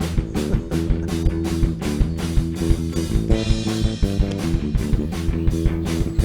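Background rock music with guitar, bass and a steady drum beat.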